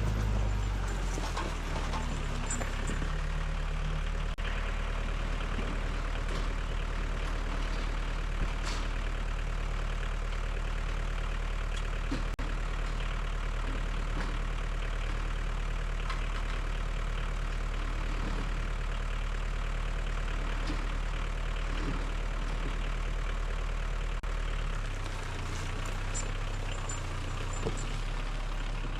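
Engine idling steadily, its low note shifting slightly near the end.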